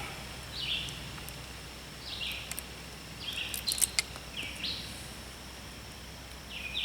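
A bird calling over and over: five short, high calls, each dropping in pitch, spaced a second or two apart. A few faint sharp clicks fall near the middle.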